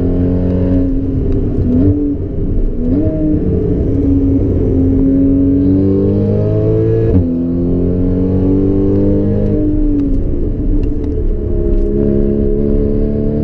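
A 2014 Porsche Cayman S's flat-six engine through a Borla exhaust, heard from inside the cabin while being driven hard. The revs climb and fall, with quick jumps in pitch about two and seven seconds in, and build again near the end.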